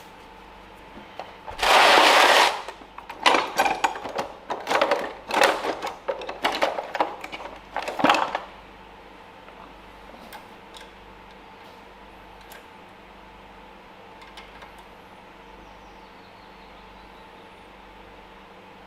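Metal hand tools clattering: a loud burst about two seconds in, then rapid irregular clicks and rattles for about six seconds, as work on the engine's valve clearance adjustment gets under way; after that only faint occasional ticks.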